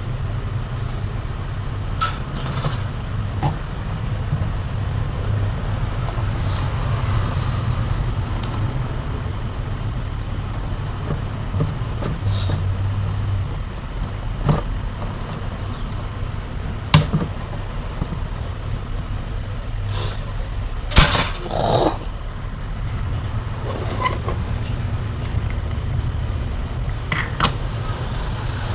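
Steady low rumble of road traffic, with scattered clicks and knocks from handling and fitting table-fan parts back together; the loudest knocks come in a short cluster about two-thirds through.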